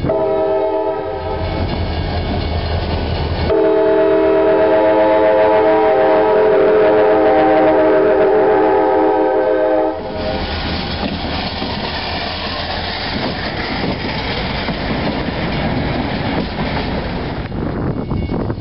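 Diesel freight locomotive's multi-chime air horn sounding a short blast, then a long one of about six seconds. The lead locomotives then pass close by, engines running and wheels clattering over the rail joints.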